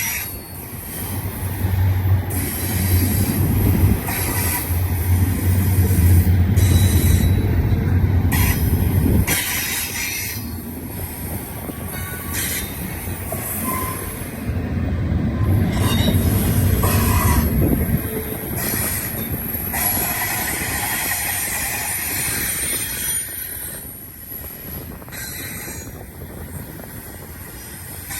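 Intermodal freight train cars rolling past on a tight curve, wheels squealing against the rail over a heavy low rumble. The rumble eases off in the last few seconds.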